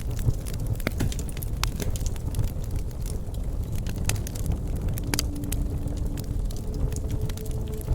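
Wood campfire crackling, with irregular sharp pops and snaps over a low, steady rumble of burning.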